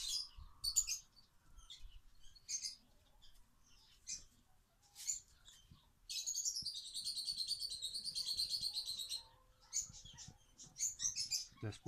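Songbirds chirping, with short high chirps scattered throughout and a rapid, continuous trilling song from about six to nine seconds in.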